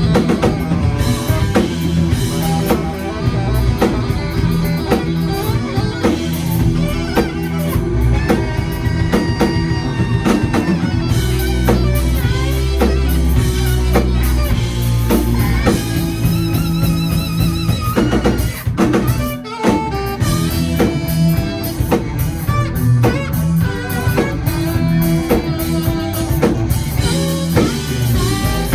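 Live rock band playing an instrumental passage: electric guitar lines with wavering, bent notes over drum kit and a steady low bass part, with a brief break a little past halfway before the band comes back in.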